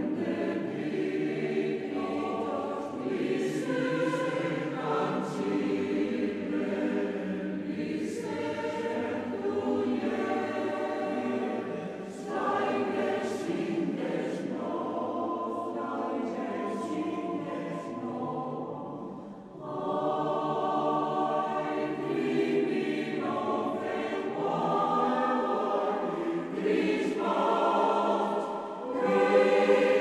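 Background choral music: a choir singing held chords, with brief breaks between phrases.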